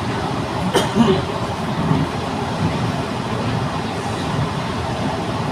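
Steady running noise of a Thomson-East Coast Line CT251 metro train heard inside the passenger car while travelling between stations, with a single sharp click a little under a second in.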